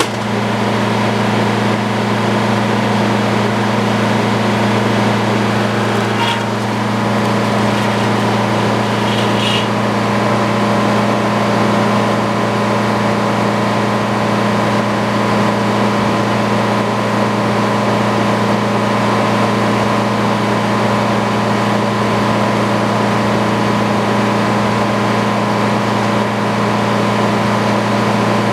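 Sawmill engine running at a steady hum, with two brief high chirps about six and nine seconds in.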